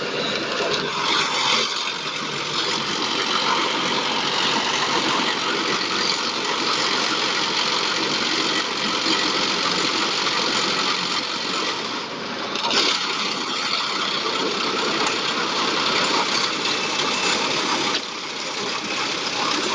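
Concrete mixer pump running steadily, its engine and pumping machinery making a dense, even noise. There is a sharp knock about thirteen seconds in, and the sound drops slightly in level near the end.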